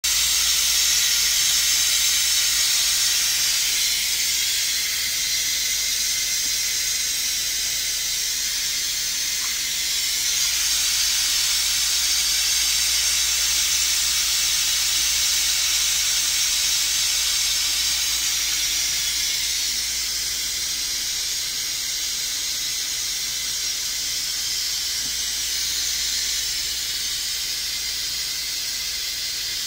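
Stovetop pressure cooker at pressure, steam hissing steadily from its valve.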